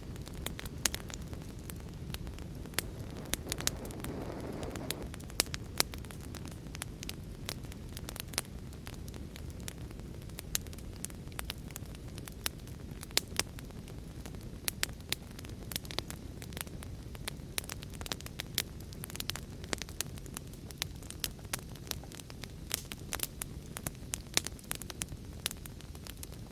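Wood fire crackling: frequent sharp, irregular pops and snaps over a steady low rumble of burning.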